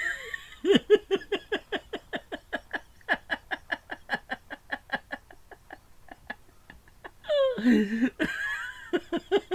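A man laughing hard and helplessly: a long run of rapid breathy "ha" pulses, about six a second, that fades for a moment. Then comes a louder wavering, high-pitched squeal of laughter a little after seven seconds in, and the rapid laughing starts up again.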